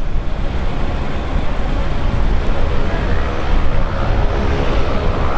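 Boeing 737-700 airliner on final approach, its CFM56 jet engines giving a steady heavy rumble. A faint whine of several steady tones comes in about halfway through.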